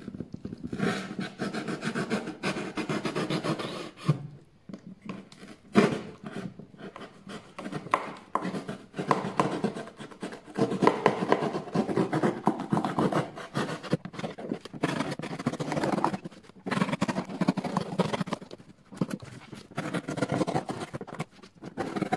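Rapid scratching and rubbing in bouts, with a few short pauses.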